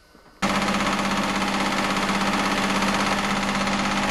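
Electric sewing machine running fast and steady, a rapid even mechanical clatter over a motor hum, cutting in suddenly about half a second in.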